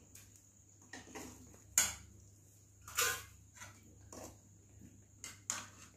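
Metal ladle clinking and scraping in a kadai while curry is dished out onto a steel plate: a string of short sharp clinks, the loudest about two and three seconds in.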